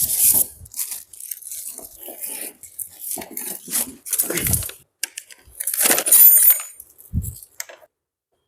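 Unboxing handling noise: packaging rustling, crinkling and tearing in irregular bursts, with clinks and knocks, a loud rustle about six seconds in and a low thud about a second later.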